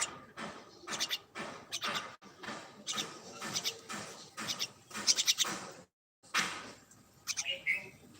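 Birds chirping in a run of short, sharp calls, cut off briefly about six seconds in.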